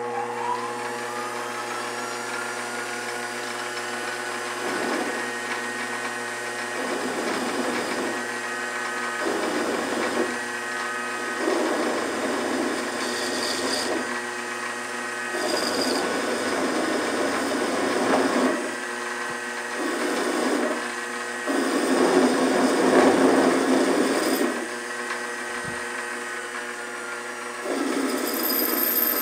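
A benchtop lathe's motor spins up with a rising whine and then runs steadily. A 29 mm drill is fed into aluminium in about nine bursts of rough cutting noise; the loudest comes a little past two-thirds of the way through. The drill cuts but grabs in with a juddering bite.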